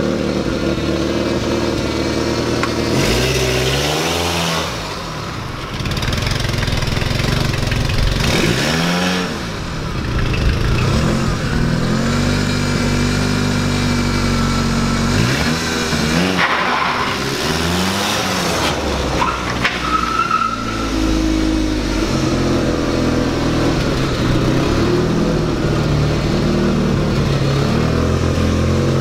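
A VW Lupo's swapped-in 1.8T turbocharged four-cylinder engine running, blipped about four times. Each rev climbs and falls back within a second or two, with steadier low-rpm running between the blips.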